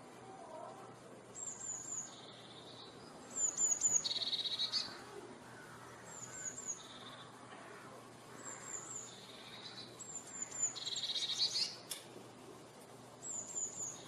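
Eurasian blue tit singing: about six phrases, each of three or four thin, high descending notes followed by a lower, buzzing trill.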